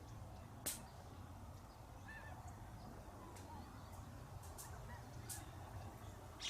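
Faint outdoor ambience: a steady low rumble with a few faint short chirping calls, scattered light ticks, and one sharp click less than a second in.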